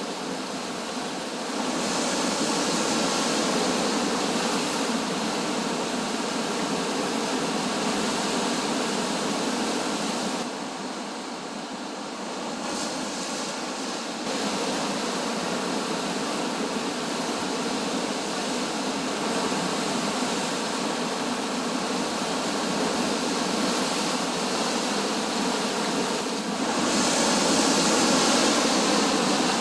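Ocean waves surging and breaking as a steady rushing noise, jumping abruptly in level a few times.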